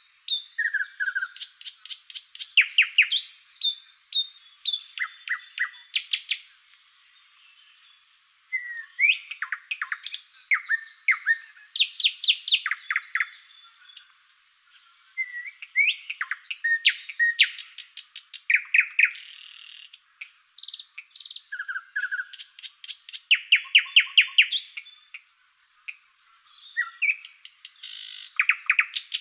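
Songbirds chirping and calling in bouts: rapid trains of sharp, high notes and short downward-sliding whistles, with brief lulls between bouts.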